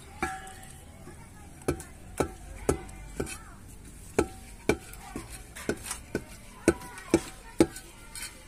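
Wooden stirring stick knocking against the side of an aluminium cooking pot as the food is stirred. The knocks come in runs of about two a second, several leaving a short metallic ring.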